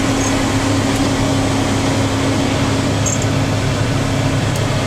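Combine harvester running steadily, heard from inside the cab with the cab fan blowing: an even drone with a low hum.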